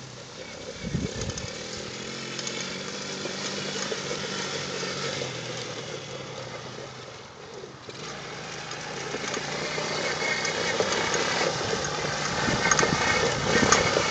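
Small 90 cc ATV engine running, dipping slightly about halfway through and then growing louder toward the end.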